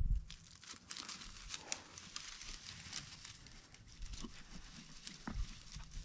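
Dry grass and brush crackling and rustling as someone moves through it, with a low thump at the very start.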